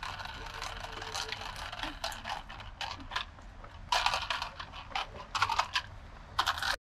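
Clinks and clatter of cutlery and dishes, a quick run of small sharp clicks that grows louder about four seconds in and cuts off abruptly near the end.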